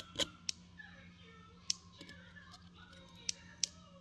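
About five sharp, irregular clicks from hand work on a rebuildable vape atomizer while its coils are dry-burned and worked with tweezers, over a low steady hum.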